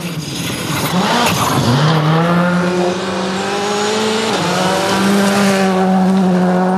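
Skoda Fabia R5 rally car's turbocharged 1.6-litre four-cylinder engine running at high revs on a gravel stage. The engine note drops twice, once under two seconds in and again past the midpoint, then climbs and holds high as the car accelerates between corners. A rush of tyre and gravel noise sounds in the first couple of seconds.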